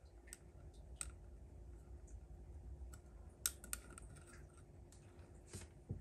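Faint clicks and scrapes of metal tweezers against a small glass jar and the soil and stones inside, as a clear waterfall piece is worked into place, over a low rumble of handling.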